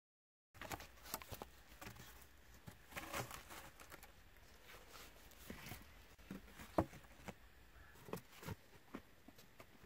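Quiet, irregular knocks and clatter of cut wooden poles being handled and set down on dry leaf litter, with one sharper wooden knock a little past the middle.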